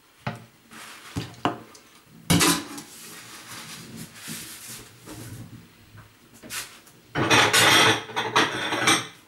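Household objects being handled and moved: a few scattered knocks, then a loud, dense clatter near the end.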